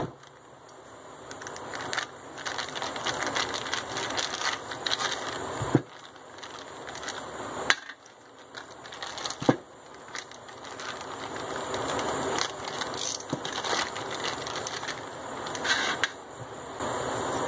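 Clear plastic parts bags crinkling and rustling as they are opened by hand to take out steel tie rod ends, with a few sharp knocks as the parts are handled on the bench.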